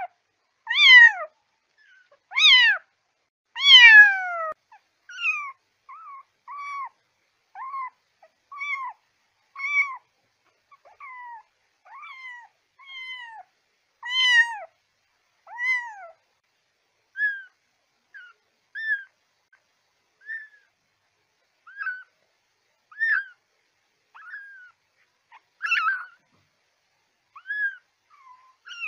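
A kitten meowing over and over, short high-pitched calls that fall in pitch, about one a second; the first few are loud and drawn out, and the rest are shorter and quieter.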